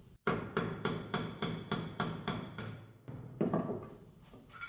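Hammer tapping out a tight pin from a Browning BPS shotgun's internal parts, about nine sharp metal taps at an even rhythm of three or four a second, then a softer knock near the end.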